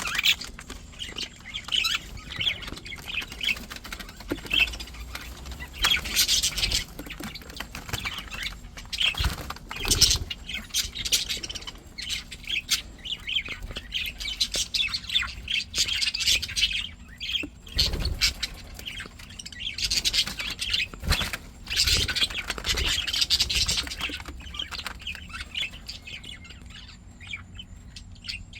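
Budgerigars chirping, warbling and chattering continuously, with occasional squawks and light knocks.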